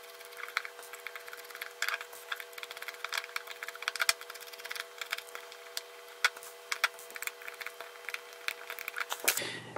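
Small screwdriver backing out tiny machine screws from a plastic retract housing: a run of light irregular clicks and scrapes from the driver tip, screws and housing, over a faint steady hum.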